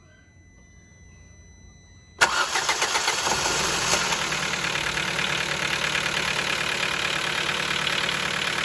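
Ford Focus 1.6 Sigma engine started cold: it catches suddenly about two seconds in and then runs with a loud, steady scraping rattle. The owner takes the scraping for a clutch problem; he says it stops only when the clutch pedal is pressed.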